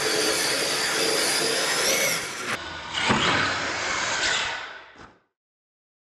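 Radio-controlled monster trucks' electric motors whining as they drive and jump, with a whine rising about two seconds in and a sharp knock about three seconds in. The sound fades out to silence about five seconds in.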